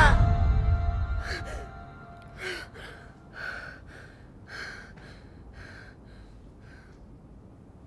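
A loud swell of film score cuts off, leaving one held tone that fades over about two seconds. Then a woman gasps and breathes fast and hard in short bursts, about one or two a second, after waking with a start, and her breaths fade out near the end.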